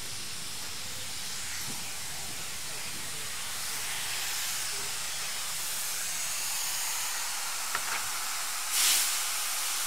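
Steam tank locomotive standing with steam hissing steadily, with a short louder blast of steam about nine seconds in.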